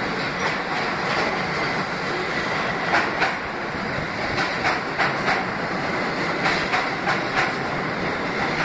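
A New York City Subway train of R62-series cars running through an underground station: the steady noise of steel wheels on rail, broken by repeated sharp clacks as the wheels cross rail joints.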